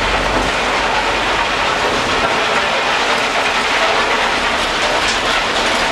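Train of freight hopper wagons rolling past, steel wheels running on the rails with a steady noise.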